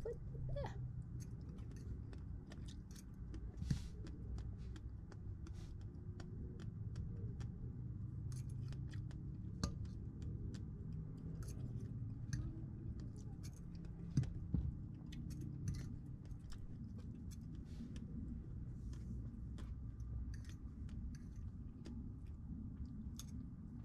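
Eating sounds: irregular small clicks and taps of a fork on a plate, with chewing, over a steady low background rumble. A few clicks stand out louder, about 4, 10 and 14 seconds in.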